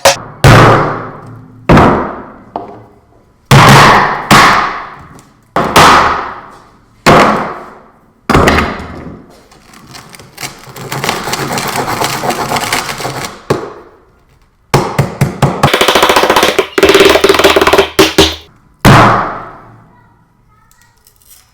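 Hammer blows on an iPhone 4S: heavy single strikes a second or two apart, each ringing out, with a longer stretch of crunching and rattling in the middle and a quick run of strikes about two thirds through, the last blow near the end.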